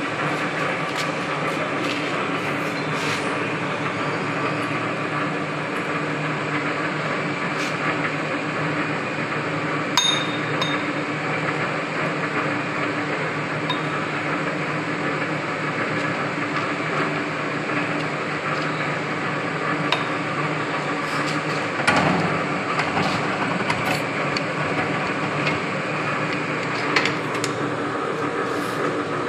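Steady running hum of a horizontal milling machine, with sharp metallic clinks of a wrench on the cutter arbor and nut: one with a brief ring about a third of the way in, and two more later on.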